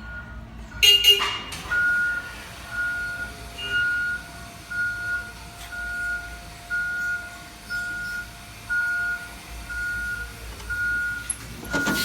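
Amigo ValueShopper mobility cart's reverse warning beeper, sounding a single-pitch beep over and over, a little more than once a second, as the cart backs up. About a second in there is a loud clack.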